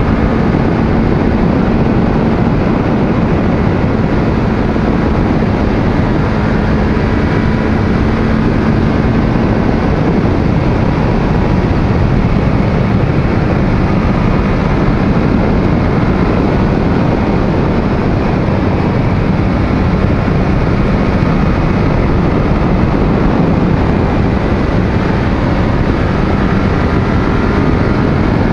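Wind rushing over the microphone and the steady drone of a 2002 Yamaha FZ1's carbureted inline-four with an aftermarket exhaust, cruising at highway speed.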